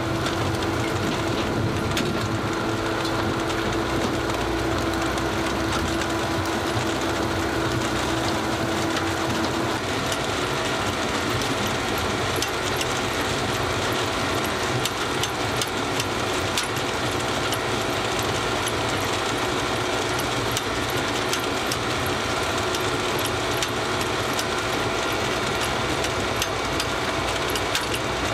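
NATURA 200 trailed sugar beet cleaner running: a steady mechanical drone from its cleaning rollers and conveyors with beets rattling through. A steady hum in it drops out about ten seconds in, and scattered clicks and knocks run through the later part.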